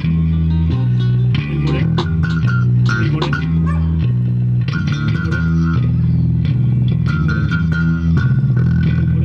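Band music with a prominent bass guitar line stepping between held notes under plucked guitar.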